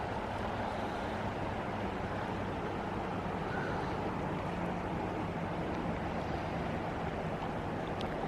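Steady rushing of a river flowing beside the trail, an even, unchanging noise.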